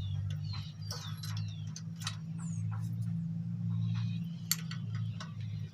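A steady low hum, with light clicks from small engine parts being handled and short high bird chirps scattered through it.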